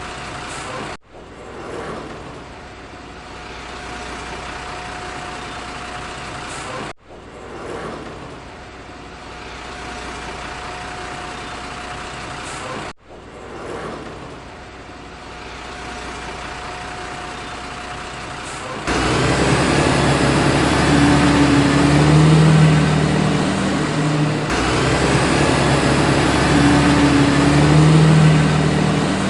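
Looped truck engine sound, cutting out briefly and restarting about every six seconds. About two-thirds of the way through, a louder vehicle sound loop with low rising and falling tones takes over.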